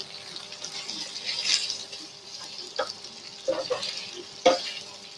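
Flat rice noodles being stir-fried in a pan with sauce, sizzling steadily, while a spatula scrapes and knocks against the pan several times, the loudest knock about four and a half seconds in.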